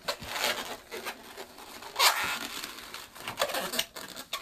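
Latex 360 modelling balloons squeaking and rubbing against each other and the hands as they are twisted into a pinch twist, with a sharp squeak about two seconds in.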